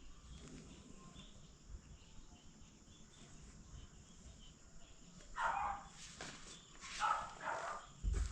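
Faint background, then three short animal calls: one about five seconds in and two close together near the end.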